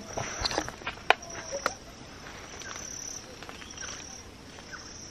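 Insects chirring in a high, thin trill that breaks off and starts again every second or so. A few sharp clicks and knocks from the camera being handled in the first two seconds.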